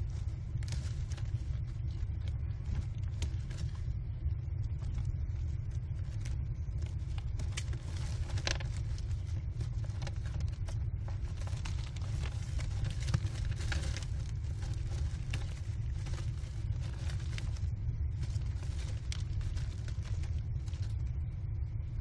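American kestrel nestlings scrabbling and flapping on the wood-chip floor of a nest box: scattered scratches and rustles, busiest about eight seconds in and again around twelve to fourteen seconds, over a steady low rumble.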